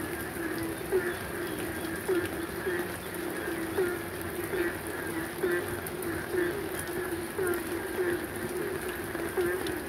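Rain falling steadily, with a run of short, low animal calls repeating about twice a second over it.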